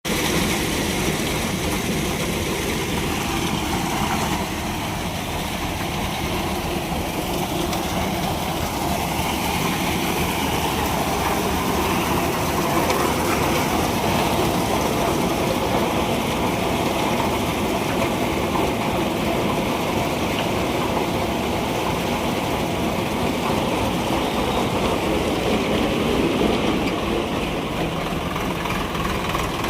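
Tractor engine running steadily while driving a self-loading concrete mixer, a continuous mechanical din with a rapid low pulse.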